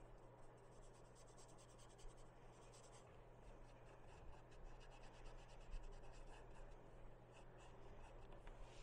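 Faint scratching of a paintbrush stroking acrylic paint across canvas, in many short, quick strokes that come thickest in the first few seconds.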